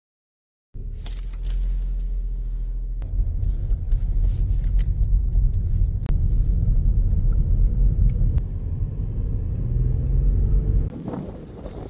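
Inside a moving car: steady engine and road rumble with light rattling and clicking. It starts abruptly under a second in, grows louder about three seconds in, and drops away a second before the end.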